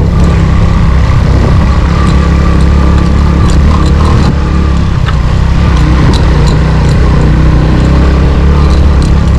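Motorcycle running while being ridden over a rough unpaved track: a steady, loud low rumble with scattered knocks and rattles.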